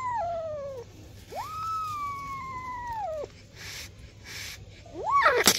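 Kitten meowing: the end of one call trails off at the start, then a long drawn-out meow that rises sharply and slowly falls. Near the end comes a short meow, cut off by a sudden loud noisy burst.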